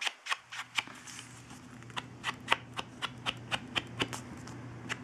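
Rapid light tapping, about four taps a second, as a sponge dauber dabs ink from an ink pad onto the edges of a paper card, over a faint steady hum.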